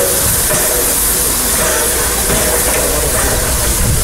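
Steady hiss of steam escaping around the cylinders of a Harz narrow-gauge 2-10-2T steam locomotive, 99 7247-2.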